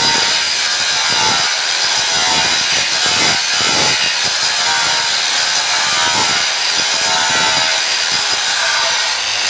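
Angle grinder with an abrasive disc grinding a flat steel bar, a loud, continuous grinding whine that swells and eases as the disc is worked back and forth along the bar. The grinding strips the scale to bare metal so the steel will forge-weld cleanly.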